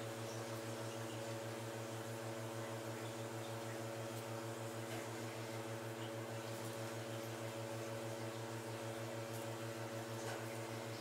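A steady low electrical or mechanical hum of several unchanging tones, like an appliance or fan running, with a faint pulse in its lowest tone.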